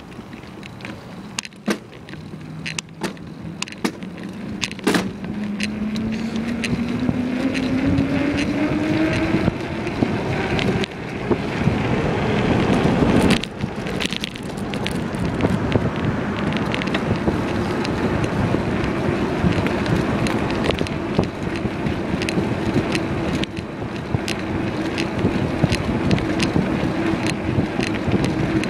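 Bicycle riding fast along a road: a hum that rises in pitch as speed builds over the first ten seconds, then holds steady, with a rushing noise and frequent rattling clicks throughout.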